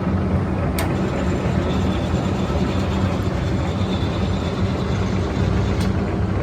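POREBA TRP93 36-inch engine lathe running with a steady mechanical hum while its cross slide moves on power rapid traverse. Two short clicks come about a second in and near the end.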